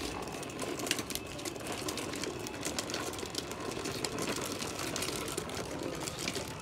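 Hard plastic wheels of a toddler's ride-on toy car rolling over rough concrete: a steady rattling grind with many small clicks.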